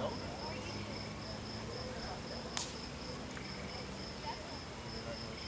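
Insect chirping steadily in an even pulse of about three chirps a second, with a single sharp pop about two and a half seconds in.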